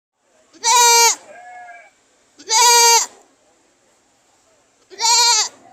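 A goat bleating: three loud, wavering calls of about half a second each, roughly two seconds apart, with a fainter bleat just after the first.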